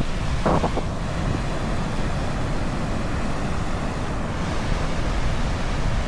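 Ocean surf washing onto a beach, a steady wash of waves, with wind buffeting the microphone.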